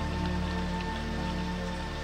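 Slow synthesizer film score, sustained chords and a low drone held steady, over the hiss of steady rainfall.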